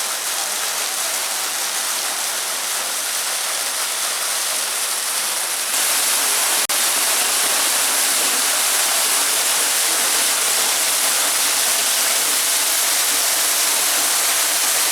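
Waterfall, a steady rush of falling water. About six seconds in it steps up louder and brighter, with a split-second dropout just after.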